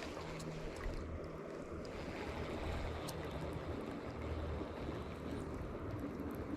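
Steady rush of high, fast creek water around a kayak, with a few faint ticks.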